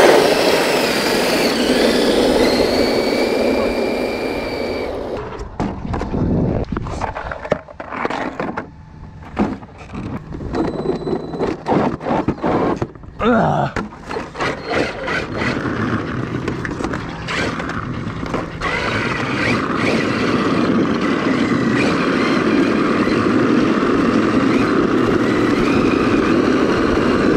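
Skateboard wheels rolling fast over rough asphalt, with the high electric whine of a Traxxas X-Maxx RC monster truck towing it. The rumble breaks up and turns uneven for several seconds midway, then settles back to a steady run.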